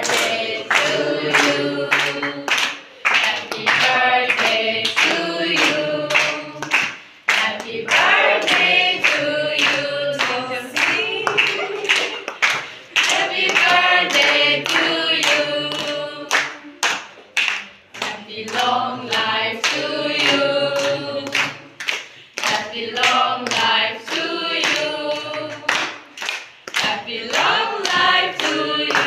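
A group of young people singing together unaccompanied, clapping along in a steady beat of about two claps a second.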